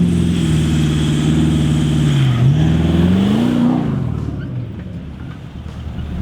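A four-wheel-drive's engine running hard under load at steady revs, then the revs dip and climb again about two seconds in before easing off and fading away over the last couple of seconds.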